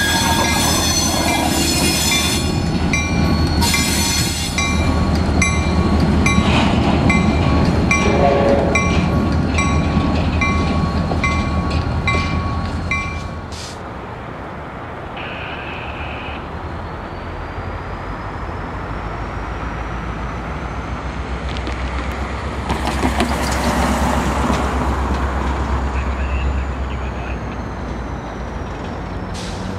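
Grade-crossing bells ringing about twice a second as a CSX GP40-2 diesel locomotive, an EMD V16, moves through the crossing with its engine running. About halfway the bells stop and only the locomotive's engine is heard, growing louder for a few seconds later on.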